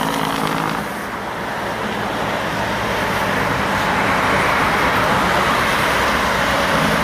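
Heavy road traffic with trucks: steady engine and tyre noise that dips about a second in, then builds steadily as a vehicle approaches.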